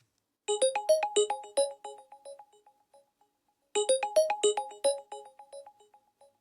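A built-in LG smartphone tone: a quick electronic keyboard-like melody of short, bright notes that plays about half a second in, fades, and repeats once about three seconds later.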